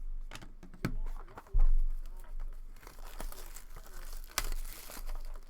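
Plastic wrapping of a trading-card pack being torn and crinkled by hand, with scattered clicks and a dull thump about a second and a half in.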